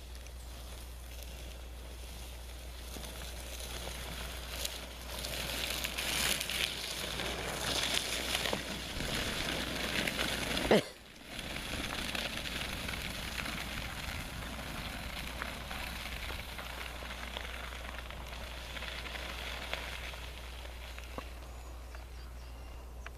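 Crunching and scraping over icy snow, building up and then going on more evenly, with small ticks. About eleven seconds in there is one sharp knock and a moment of near-silence.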